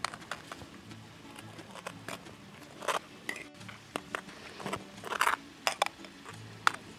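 A metal spoon scraping and clinking in short strokes as a thick sauce is spread over crisp grill-toasted bread, over soft background music.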